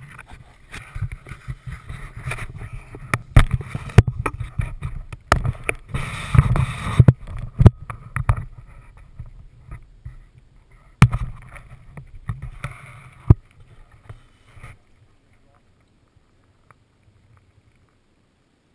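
Handling noise on a GoPro camera as it is carried through dry brush: irregular sharp knocks and scrapes with rustling. It stops about fifteen seconds in, leaving near silence.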